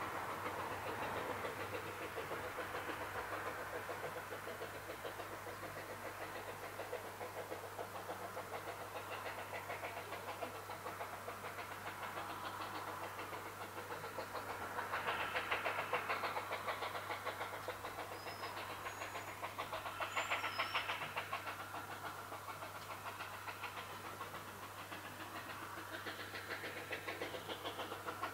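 Replica Baldwin 2-6-2T narrow-gauge steam tank locomotive working toward the camera from a distance, its exhaust beats coming in a rapid, steady rhythm, with two louder surges about halfway through. A few faint bird chirps come in over it.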